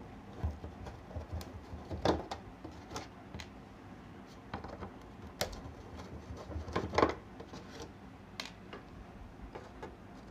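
Light, irregular clicks and taps of a screwdriver working at the plastic case of a quartz clock movement, with louder knocks about two and seven seconds in.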